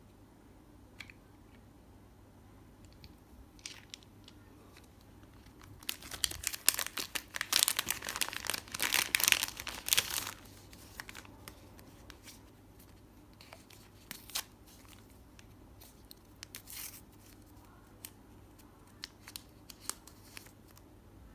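Packaging being torn open and crinkled close up, a dense crackling lasting about four seconds, with scattered small clicks and taps before and after it.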